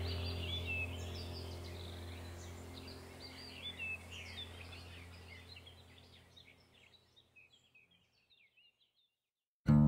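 Birds chirping over a steady low hum, both fading out over about six seconds into silence; acoustic guitar music starts at the very end.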